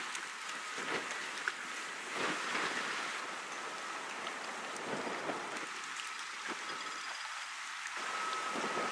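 Choppy river water splashing and lapping, a rushing noise that swells and eases every second or two, with a faint high steady tone that is clearest near the end.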